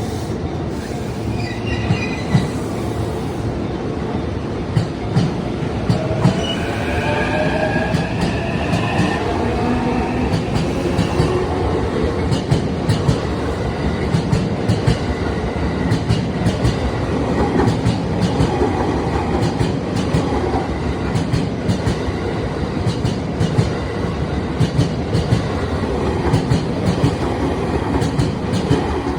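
E231-series electric commuter train running past, its wheels clattering over rail joints in a long series of clicks. A rising whine comes in about a quarter of the way through.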